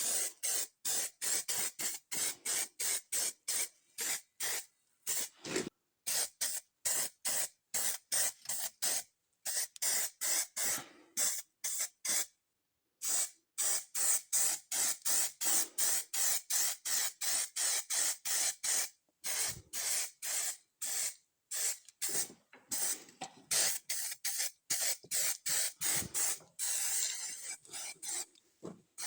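Paint being sprayed in short, rapid bursts of hiss, about three a second, with a pause of about a second near the middle.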